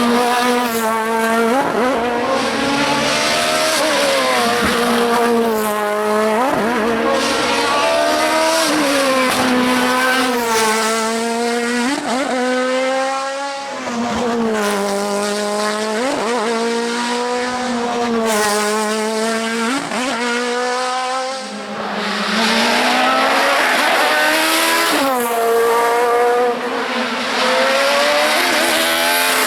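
Racing car engine at full throttle, its note climbing steeply and dropping back again and again as it shifts up and down through the gears.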